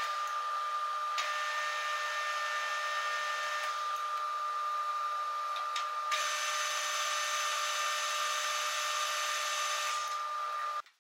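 Metal lathe running as it turns a steel barrel tube, a steady high whine over a hiss; the sound shifts a few times and cuts off abruptly near the end.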